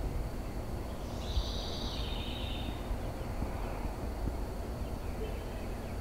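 A bird calling: a quick run of high notes starting about a second in and lasting about two seconds, with a few fainter notes later, over a steady low rumble.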